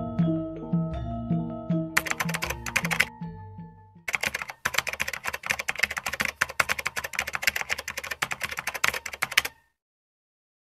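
Keyboard typing sound effect for on-screen text: a short burst of rapid key clicks about two seconds in, then a steady run of keystrokes from about four seconds in that cuts off suddenly near the end. Slow music with low repeating notes plays under the start and fades out by about four seconds.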